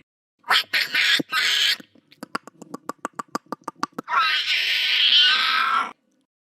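Pyroraptor dinosaur sound effect: a short raspy snarl, then a rapid run of clicking chirps at about eight a second, then a long screech lasting nearly two seconds.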